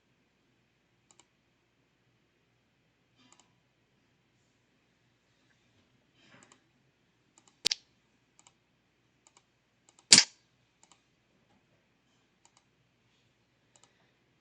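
Clicks from working a computer: scattered faint ticks, with two sharp louder clicks about seven and a half and ten seconds in.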